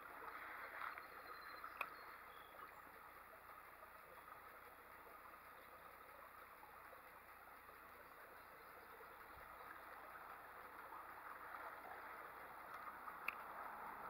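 Near silence: the faint, steady sound of creek water running, with a couple of faint clicks.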